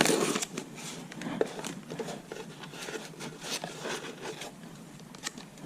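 Paper and packaging being handled: irregular rustling with small clicks and scrapes, loudest in the first half second, with one sharp click near the end.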